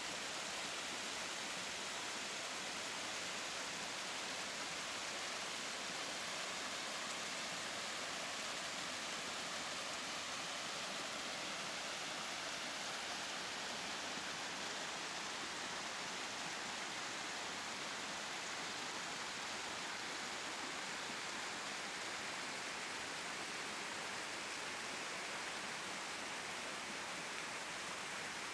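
Steady rushing of water from a small waterfall and a shallow stream running over rocks.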